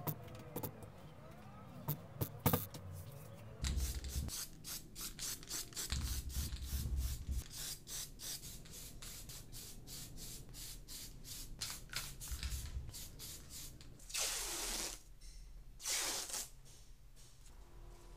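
Handwork at a workbench: scattered clicks, then a long run of quick scratchy strokes, about four a second, then two hissing bursts of about a second each near the end.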